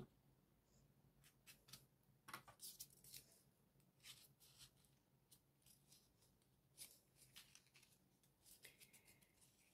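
Faint, irregular rustling and small clicks of folded paper 3D origami modules being handled and slotted together by hand.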